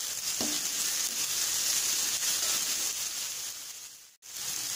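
Chopped onions and crushed garlic sizzling in hot oil in a steel kadai: a steady frying hiss. It fades out for a moment about four seconds in, then comes back.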